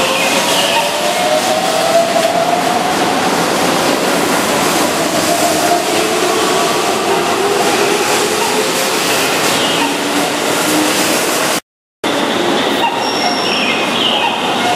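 Keihan electric commuter train pulling away from the platform: the traction motor whine rises in pitch as it accelerates, over the rumble of wheels on the rails. A brief cut near the end switches to a second train standing at the platform.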